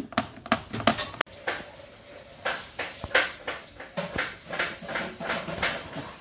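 A dog licking ice cream from a plastic bowl, quick wet laps about five a second that knock the bowl. After about a second these give way to fainter, irregular clicks and taps.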